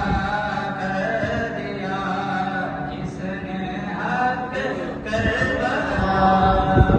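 Male voices chanting an Islamic devotional recitation with long held melodic notes, amplified through a microphone. A low bump near the end.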